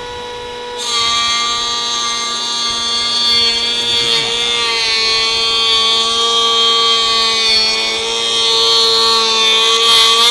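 Cordless 21V brushless electric hand planer running with a steady high whine; about a second in, its blades bite into an oak board and it planes along it with a loud, continuous cutting noise. The cutting stops right at the end as the motor starts to wind down.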